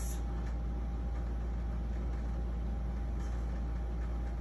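Steady low hum of room background noise, with a faint steady high tone above it and no other events.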